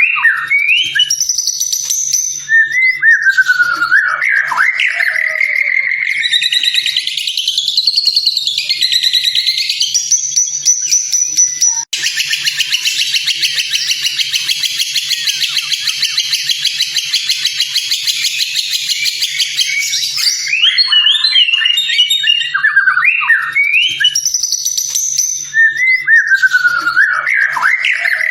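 White-rumped shama (murai batu) singing: varied whistled phrases that glide up and down, broken about twelve seconds in by a long, rapid buzzy trill lasting some eight seconds, then whistled phrases again. A faint low hum runs underneath.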